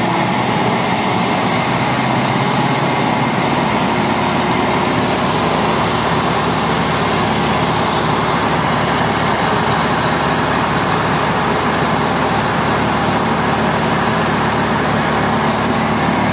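Cessna 150's four-cylinder Continental O-200 engine and propeller running steadily, heard inside the cockpit, with a deeper low rumble filling in about three and a half seconds in.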